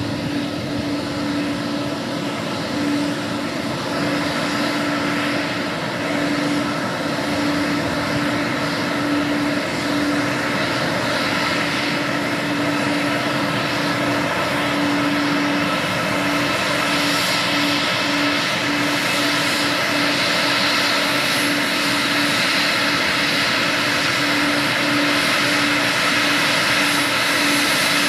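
Four-engined Airbus A340 jet taxiing toward the listener: a steady engine whine and rush with a constant low hum underneath, slowly growing louder as it nears, the high whine stronger in the second half.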